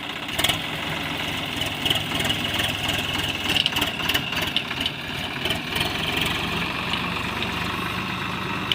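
Diesel engine of an XCMG XE80C excavator running steadily, with a series of sharp metallic clanks and knocks about half a second in and again between about two and six seconds in.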